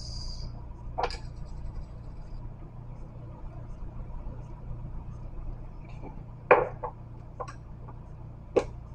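Small glass spice jar being handled and opened: a few sharp clicks and taps of lid and glass, the loudest about six and a half seconds in, over a steady low hum.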